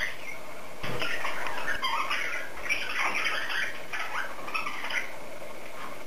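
Pet cockatiel chattering with a quick run of short squawks and chirps, starting about a second in and going on busily.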